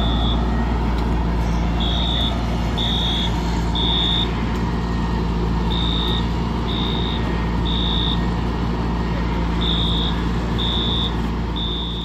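Building fire alarm sounding in the temporal-three evacuation pattern: three high beeps about a second apart, the group repeating about every four seconds, over the steady low rumble of an idling engine.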